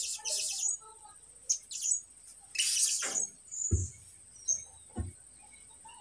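Young caged songbird practising its song: hesitant, scratchy high chirps and raspy bursts, the longest about two and a half seconds in. Two dull thumps come near the end, and a thin steady high whine runs underneath.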